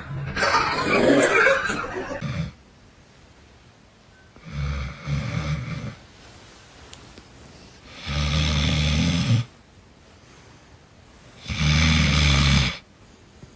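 Snoring: three long, low, buzzing snores about three and a half seconds apart, with quiet breaths between them. Before them, in the first two seconds, comes a louder, mixed burst of sound.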